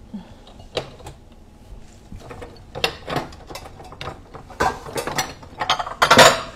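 Bowls and kitchenware clattering and knocking as they are moved about inside a lower kitchen cabinet: a string of scattered clicks and knocks, with the loudest clatter near the end.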